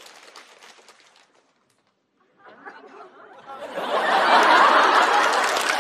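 Studio audience laughing and applauding. The noise fades away, there is about a second of silence, then it swells up loud again about two and a half seconds in.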